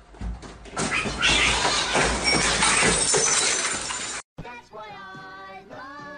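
A loud crash and clatter of objects knocked over and falling, lasting about three seconds before cutting off abruptly. Background music with held notes follows.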